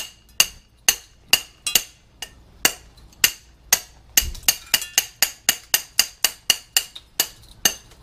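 Small hammer tapping a freshly cast silver bar to chip off its crust of flux: sharp metallic clinks with a ringing tone, about two a second, quickening to about four a second after halfway. The bar is still hot, so the flux chips off poorly.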